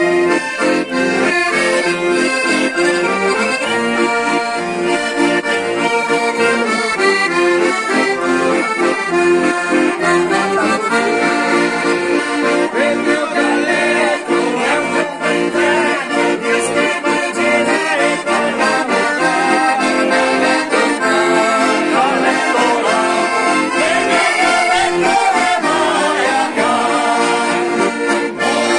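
Several piano accordions playing a traditional tune together, held chords under a moving melody.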